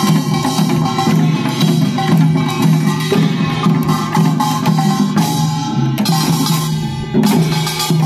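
Korean farmers' dance (nongak) music: rhythmic drumming and percussion strokes over a steady pitched band, with a short lull and then a strong accented beat about seven seconds in.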